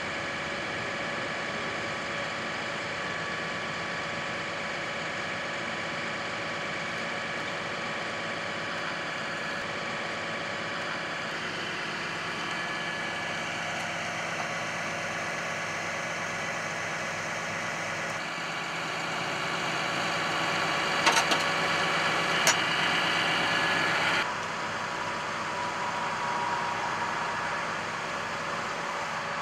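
Utility truck engine idling steadily. About 18 seconds in the sound grows louder for roughly six seconds, with a couple of sharp clicks, then drops back abruptly to the idle.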